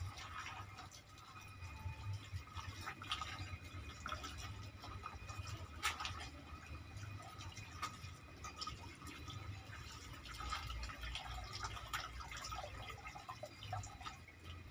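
Water dripping in irregular small drops, over a low steady hum.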